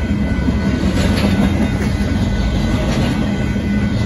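Union Pacific intermodal freight train's double-stack container cars rolling past: a loud, steady rumble of steel wheels on rail with a few faint clicks over rail joints.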